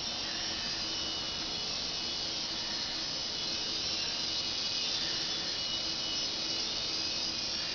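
Mini remote-control helicopter in flight: its small electric motor and rotor give a steady, high buzzing whine.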